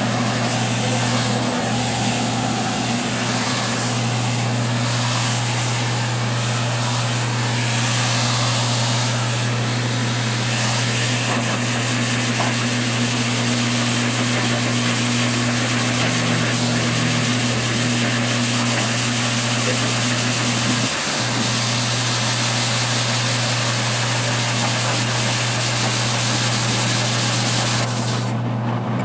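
Mini washing machine running: a steady motor hum under a continuous hiss of water churning in the tub. The hiss drops away near the end while the hum carries on.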